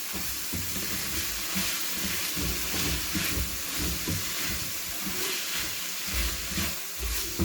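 Minced chicken and onion filling sizzling in a pan over a high flame while being stirred, with irregular scrapes and knocks of the stirring utensil against the pan.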